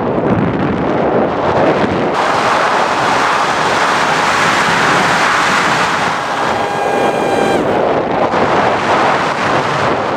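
Wind rushing over the microphone of an onboard camera on an EasyStar RC foam plane in flight, with its electric pusher motor running. The rush grows louder about two seconds in, and a steady whine sounds for about a second and a half around seven seconds in, as the plane climbs through a loop.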